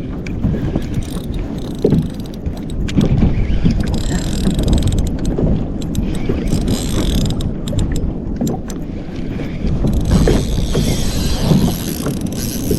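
Wind buffeting the microphone and water slapping against a kayak hull while a big snapper is fought on light line, with a fishing reel's mechanical whirring at times.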